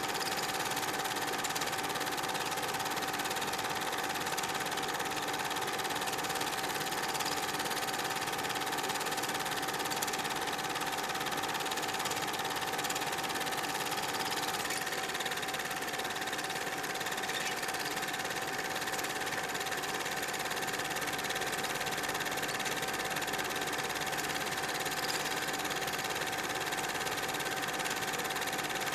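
Super 8 film projector running: a steady mechanical whir with a constant hum tone.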